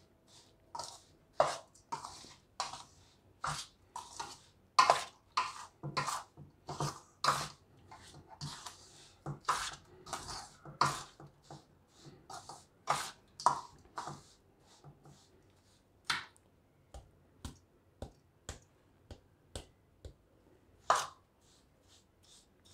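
Steel spoon stirring a coarse, oily spice mix in a stainless steel bowl: a quick run of short scrapes and clinks against the metal, several a second, growing fewer and further apart in the last third.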